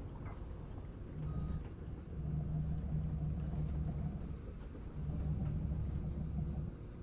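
Heavy logging machinery engine running with a low rumble that grows louder in three stretches: briefly about a second in, then for about two seconds, then again for under two seconds near the end.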